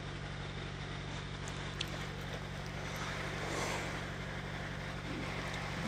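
A pump's engine running steadily nearby: an even, unchanging low hum.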